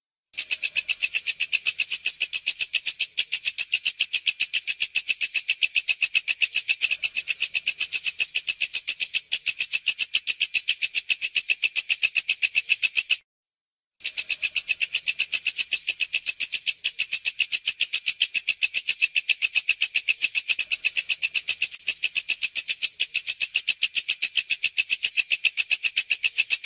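Walang kecek bush cricket (katydid) calling: a fast, even train of high-pitched rasping pulses, broken once by a short pause about halfway through.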